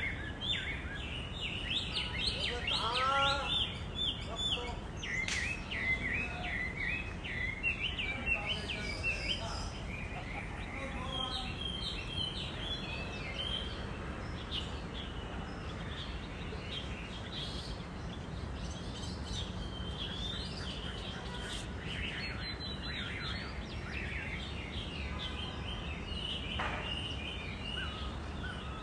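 Several birds chirping and singing, many quick calls at once in the first half, thinning to scattered calls later, over a steady low background rumble.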